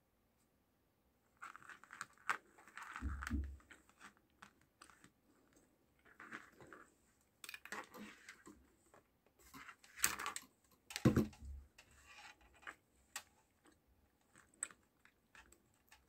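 Handling noise from a small plastic speaker-wire-to-RCA adapter and its cables: irregular clicks, rustles and scrapes as wires and plugs are fitted, with two dull thumps about three and eleven seconds in.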